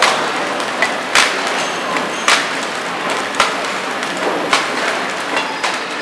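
Horizontal flow-wrapping (pillow packing) machine running steadily, with a sharp click about once a second, one per cycle, as each pack of switch sockets is sealed and cut.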